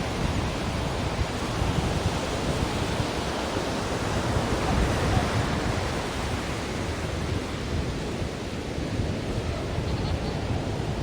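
Ocean surf: waves breaking and washing in a continuous rushing wash that swells a little in the middle and eases toward the end.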